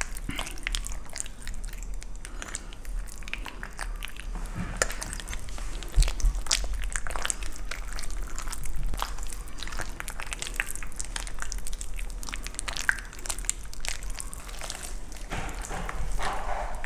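Hands kneading and rubbing thick marinade into raw leg of lamb: an irregular run of wet squelches and smacks, one louder smack about six seconds in.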